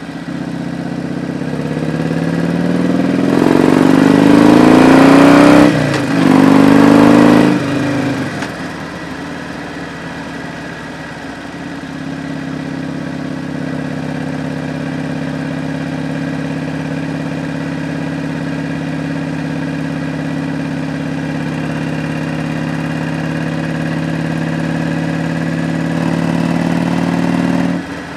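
Harley-Davidson Road Glide's V-twin engine pulling hard under acceleration, its pitch climbing with a short break at a gear change about six seconds in, then easing off about eight seconds in and settling into a steady cruise. The throttle closes with a sudden drop in sound just before the end.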